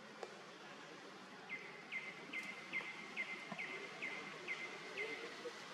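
A bird calling a run of about nine short, evenly spaced notes, about two a second, each dropping slightly in pitch, starting about a second and a half in, over a faint outdoor background hiss.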